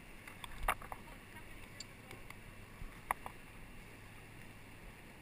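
Steady rush of choppy river water around an inflatable raft, with a couple of brief sharp sounds about a second in and about three seconds in.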